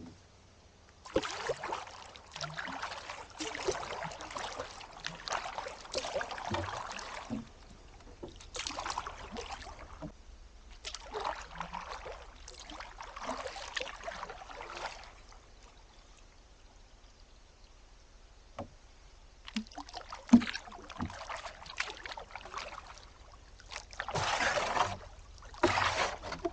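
Canoe paddle strokes on calm creek water: the blade dipping and pulling, water swishing and trickling off it, in spells of a few seconds with quiet gaps between.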